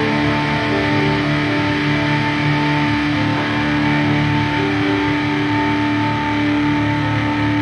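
Instrumental post-ambient rock music: electric guitars holding long, steady notes over bass, with no vocals.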